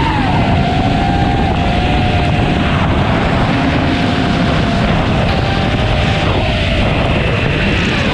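FPV racing drone's brushless motors and propellers whining as heard from the onboard camera, with wind rushing over the microphone. The whine drops in pitch right at the start as the throttle eases, holds mostly steady, and dips again near the end.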